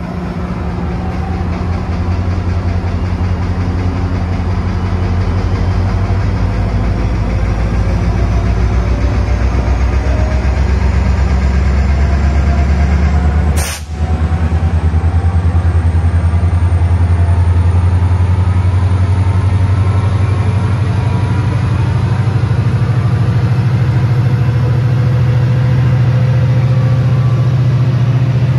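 Train locomotive running steadily at close range: a deep, even engine drone with a faint high whine that slowly rises in pitch, broken by a brief drop about halfway through.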